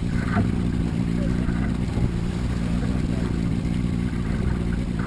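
Motorboat engine running steadily with an even low drone.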